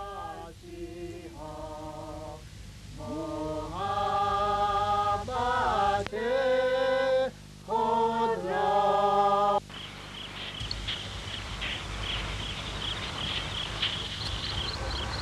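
A small group of people singing a slow hymn unaccompanied, with long held notes moving step by step, stopping about ten seconds in. Crickets then chirp steadily in a fast, even pulse.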